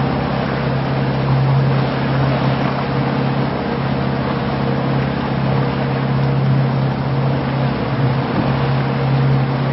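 A boat's motor running steadily: a constant low drone, with an even hiss over it.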